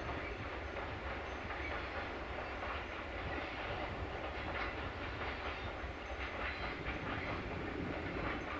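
Train rolling past with its wheels clicking over the rail joints; the clicks come through more clearly in the second half over a steady rumble.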